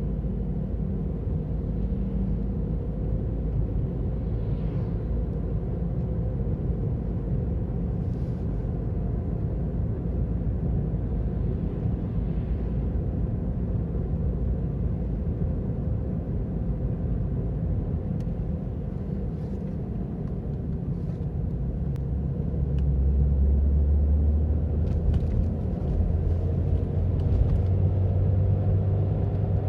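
Ravon R4 (Chevrolet Cobalt) wheel hub bearings humming while the car is driven: a steady drone over tyre and road rumble, which grows louder a little past two-thirds of the way through. The hum is the sign of worn hub bearings that are due for replacement.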